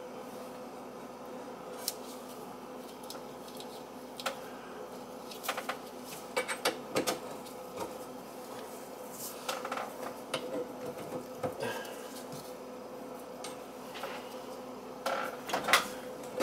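Copper water pipe and fittings being handled and fitted overhead: scattered light metallic clicks and knocks, a few louder ones near the end, over a steady faint hum.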